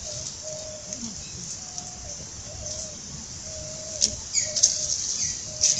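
A bird gives a series of short, level whistled calls over a steady high-pitched buzz. Dry leaf litter crackles underfoot about four seconds in and again near the end, the loudest sounds.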